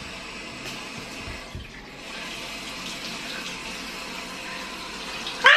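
Kitchen tap running steadily, a continuous hiss of water, with a brief voice right at the end.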